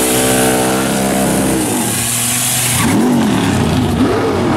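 Buick Grand National doing a burnout: the engine is held at steady high revs while the spinning rear tyres hiss. About three seconds in, the hiss drops away and the engine revs rise and fall.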